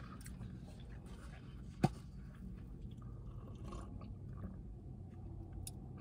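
A person chewing food quietly, over a low steady hum, with one short sharp click about two seconds in.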